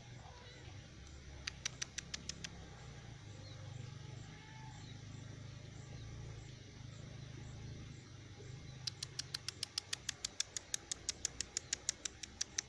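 A bird calling in rapid trains of sharp ticking notes: a short run of about seven near two seconds in, and a longer run of about twenty-five from about nine seconds in, over a faint low hum.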